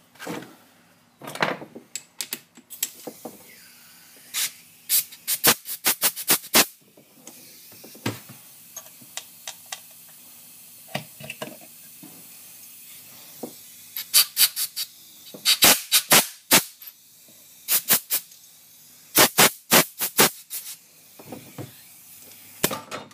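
Metal hand tools clicking and clattering against a Stihl MS 260 chainsaw during a hand-cut thread repair, in several quick bursts of sharp clicks, with a faint steady hiss between them.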